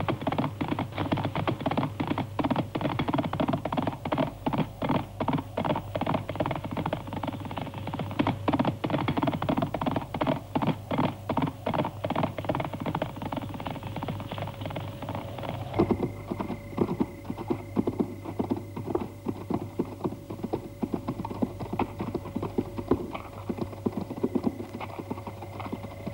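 Horse hooves clip-clopping in a quick, steady rhythm. About two-thirds of the way through, a steady hum comes in underneath the hoofbeats.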